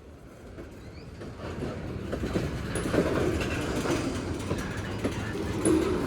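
Cars of a Union Pacific manifest freight train rolling past, their steel wheels rumbling and clacking on the rails. The sound grows louder over the first couple of seconds, then holds steady.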